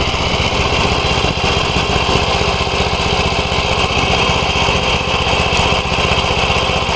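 Wheel Horse B111 garden tractor's Briggs & Stratton engine running steadily, with even firing pulses and no change in speed.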